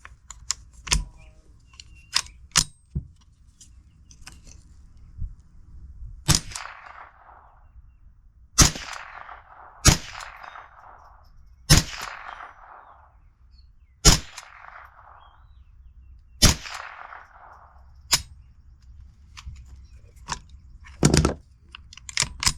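Gunshots fired one at a time: about seven loud shots spaced a second or two apart, each ringing out briefly after the crack, with fainter cracks in the first few seconds and near the end. The string of shots empties the magazine.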